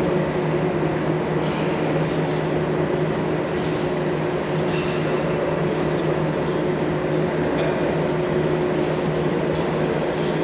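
Steady droning hum with a constant low tone, over the room noise of a large hall, with a few faint clicks.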